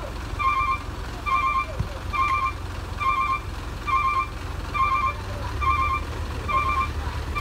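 Vehicle reversing alarm beeping steadily, a short pulsing two-tone beep a little more than once a second, over the low steady rumble of an idling diesel engine.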